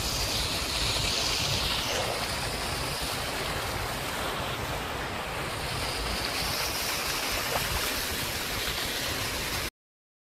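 Wind buffeting a phone's microphone outdoors, a steady rushing noise with a low rumble, cutting off suddenly near the end.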